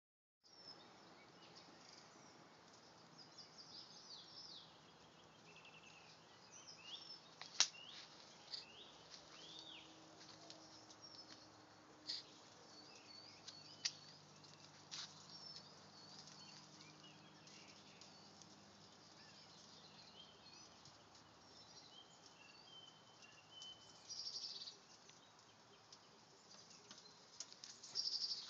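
Faint chirps and short phrases of small birds singing, with a few sharp clicks, the loudest about a quarter of the way in.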